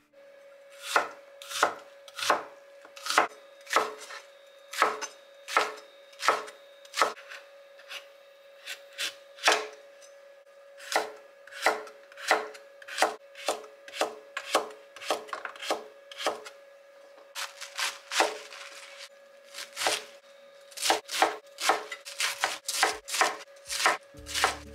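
Kitchen knife chopping carrot and other vegetables on a wooden cutting board. The blade knocks on the board in a steady rhythm of about one stroke every 0.7 s, quickening to about three strokes a second near the end.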